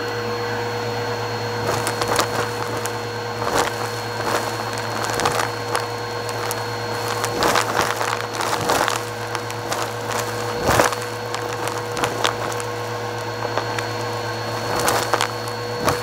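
Bissell Purple Helix vacuum running steadily through its dusting brush tool, with irregular crunchy crackles and clicks from about two seconds in as it sucks up lint, glitter and sequins.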